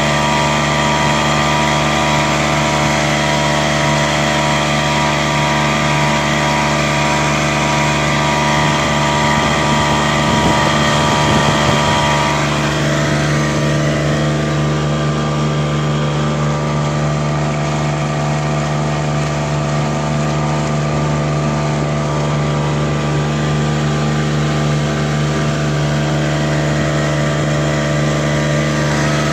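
Small Mariner outboard motor running steadily at cruising throttle, with the wash of the boat's wake. The sound turns a little duller about twelve seconds in.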